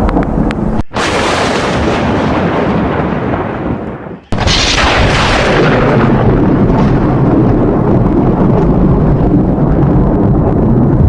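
Thunder: two sharp cracks, about a second in and again about four seconds in, each a loud crash that rumbles away over a couple of seconds, over a steady loud noise of the storm.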